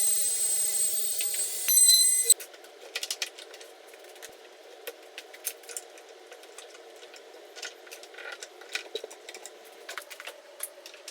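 An electric router running with a steady high whine for about two seconds, which cuts off suddenly. Scattered light clicks and taps of handling follow.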